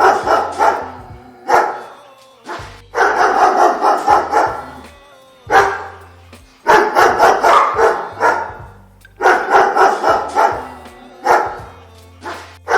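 Dogs barking loudly: single sharp barks alternating with quick strings of rapid barks, repeating every few seconds.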